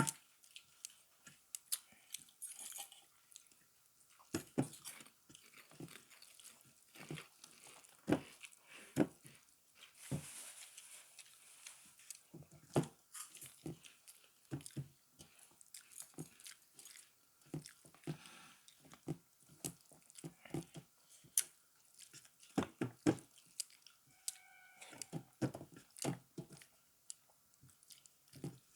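A person eating a rice meal close to the microphone: chewing, with frequent irregular crunches and mouth clicks.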